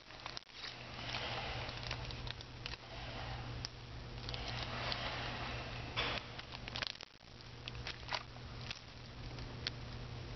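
Plastic packaging bags crinkling and rustling as small parts inside them are handled, with scattered clicks and taps, over a steady low hum.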